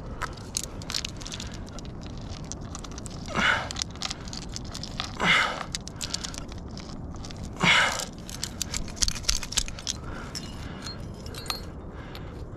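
Climbing rack of carabiners and cams jangling and clicking on the harness as the climber moves up the crack, with a burst of clicks as the rope is clipped near the end. Three short, sharp breaths come between about three and eight seconds in.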